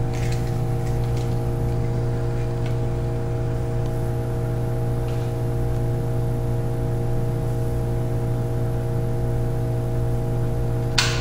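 A steady machine hum, a low tone with several fixed higher tones above it, unchanging throughout. A few faint light clicks come through it, from hands handling wiring at the distributor.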